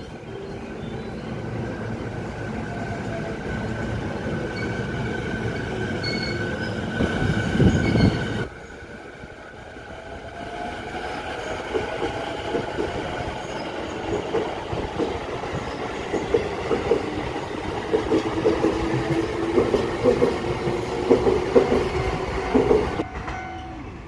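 Saikyo Line E233-series electric trains. For the first eight seconds there is rising running noise with a high whine, and it cuts off suddenly. Then a train runs past on the near track with a rhythmic clickety-clack of wheels over rail joints, growing louder until it stops abruptly near the end.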